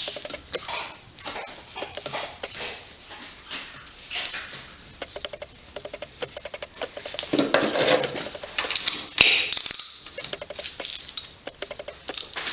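Socket ratchet clicking in quick runs of sharp ticks as it is worked on a bolt, with a louder clattering scrape for a couple of seconds past the middle.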